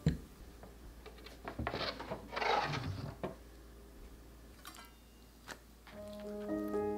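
A glass of ice cubes set down with a sharp clink, then two short rustling, clattering bursts and a few light knocks of kitchen handling. Soft music comes back near the end.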